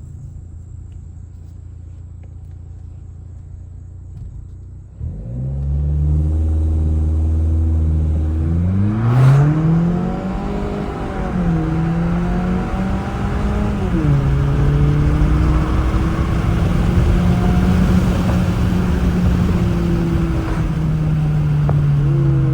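Mk7 VW Jetta's turbocharged four-cylinder with an aftermarket intake and muffler delete, heard from inside the car: a low steady drone for about five seconds, then the engine note suddenly gets much louder and climbs as the car accelerates. The pitch drops back at gear changes and then holds at a steady pull.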